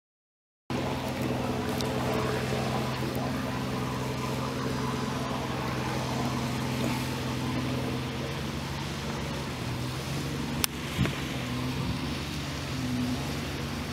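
A small fishing trawler's engine running steadily, a low even drone over wind and sea noise, starting under a second in. A single sharp click sounds about ten seconds in.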